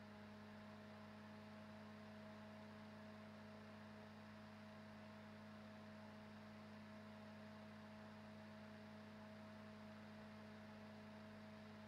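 Corsair ML140-series 140 mm magnetic-levitation fan running at about 90 % PWM duty: a faint, steady hum made of a few steady tones, the highest rising very slightly as the speed is nudged up.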